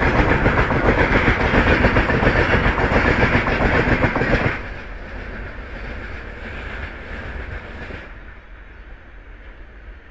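Freight train of open-top goods wagons passing close by, its wheels clattering rapidly over the rails. The noise drops suddenly about four and a half seconds in as the last wagon goes by, then fades to a fainter rumble as the train pulls away.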